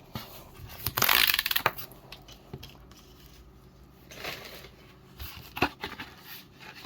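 Packaging of a trading-card box being handled and opened by hand: a loud crinkling rustle about a second in, then softer rustles and a few light taps and clicks.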